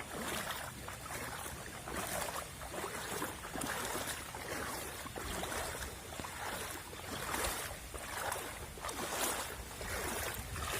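Rushing floodwater: a steady noise with a low rumble that swells and eases irregularly.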